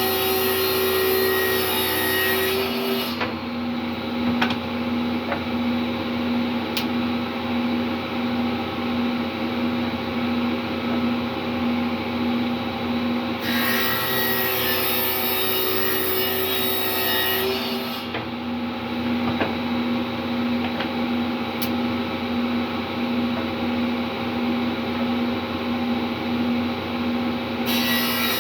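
Table saw running steadily while cedar planks are ripped along their edges. Three cuts, each a few seconds long, come at the start, in the middle and near the end, each adding the hiss of the blade in the wood over the steady hum of the motor.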